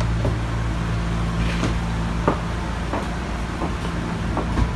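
Steady low machinery hum inside a yacht's cabin, with a few light knocks and clicks scattered through it. The sharpest knocks come about halfway through and near the end.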